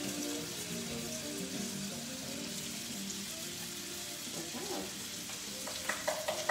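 Sliced summer squash, bell peppers and onion sizzling steadily in a skillet over the heat, with a few sharp clicks near the end.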